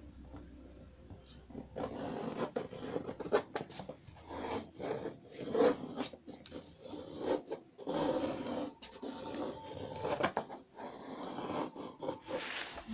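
Drawing compass scraping around on brown kraft paper as a circle is drawn, in a run of short, irregular scratchy strokes starting about a second and a half in.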